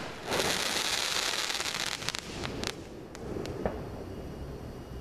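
Fireworks crackling densely for a second and a half or so, then a scatter of separate sharp pops that thin out.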